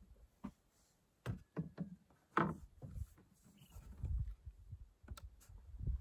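Scattered light knocks and clicks, a dozen or so at uneven intervals, with a faint short chirp about three and a half seconds in.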